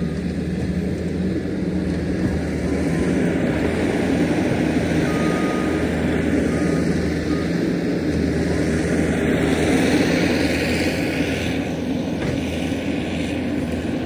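Diesel engine of heavy earthmoving equipment running steadily, swelling a little about ten seconds in. A few faint short beeps sound in the first half.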